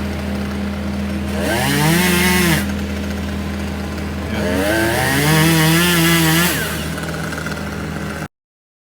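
Two-stroke chainsaw running at a steady low speed, revved up to full throttle twice for about one and two seconds, dropping back each time. The sound cuts off abruptly near the end.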